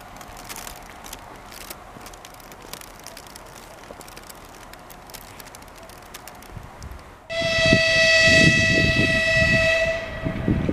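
A 2TE116 diesel locomotive's horn sounds one long steady blast of about two and a half seconds, starting abruptly about seven seconds in, over a low rumble. Before it there is only faint outdoor background.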